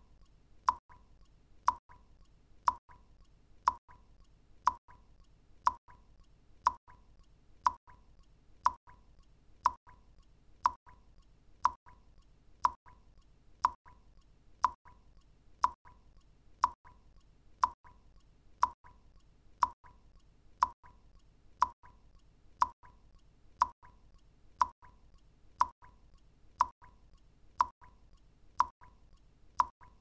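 Water drops falling into water, one short plop about every second, evenly spaced, each with a brief ringing tone. A faint low hiss lies between them.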